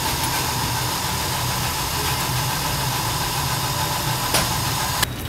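Steady whir of a repair-bench machine's motor or fan, with a low hum and a faint steady whine. It stops suddenly with a click about five seconds in.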